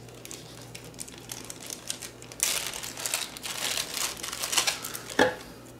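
Thin plastic bag crinkling as a charging cable is unwrapped and pulled out of it, busier from about halfway through, with a single knock near the end.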